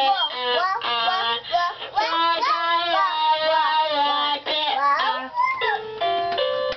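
Toddler singing in a high child's voice into the microphone of a toy electronic keyboard. Near the end the singing gives way to a few steady electronic notes played on the toy keyboard.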